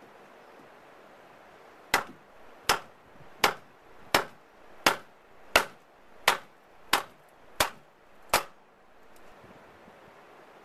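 Rubber maul striking the back of a Yardworks hatchet ten times, evenly, a little under a second apart, driving the blade down through a trembling aspen log to split it.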